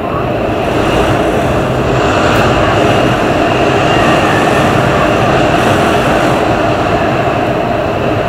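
Heavy winter-storm wind rushing in strong gusts, with a faint whistling tone over it; the gust swells about a second in and eases slightly near the end.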